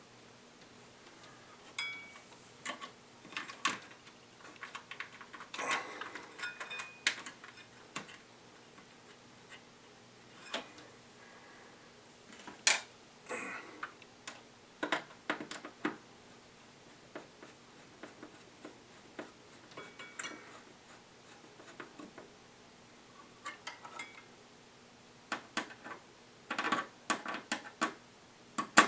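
Irregular clicks, clinks and light metallic knocks of hands working with screws, a screwdriver and a circuit board while a power supply board is fitted back into a pinball machine cabinet. A few knocks are sharper and louder, one about twelve seconds in and a cluster near the end.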